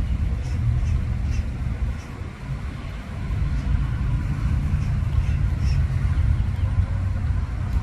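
A low, steady rumble that dominates, with a few faint short squawks from green parrots scattered through it.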